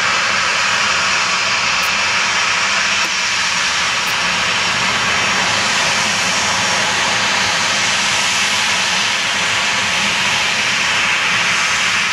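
CFM56 turbofan engines of a Ryanair Boeing 737-800 running with a loud, steady jet roar and hiss as the airliner lines up on the runway for takeoff.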